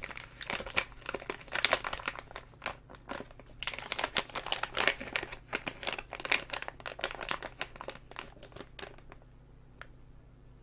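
Metallised anti-static foil bag crinkling and crackling in the hands as it is worked open to get a small circuit board out. The crinkling dies down about nine seconds in.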